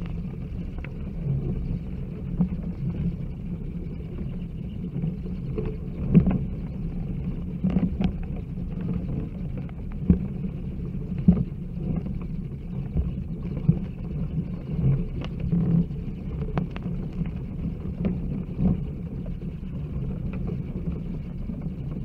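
Bat roost ambience: a steady low rumble broken by scattered sharp clicks and knocks, the loudest about six, ten and eleven seconds in.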